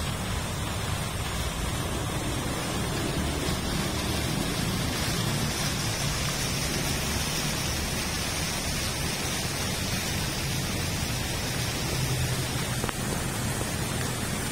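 Fountain water jets splashing into the basin, a steady, even rush of falling water.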